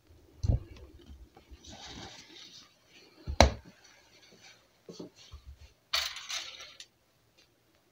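Handling sounds in a car's engine bay: light clinks and one sharp knock about three and a half seconds in, then a short scraping rustle around six seconds in as the engine oil dipstick is drawn out of its tube.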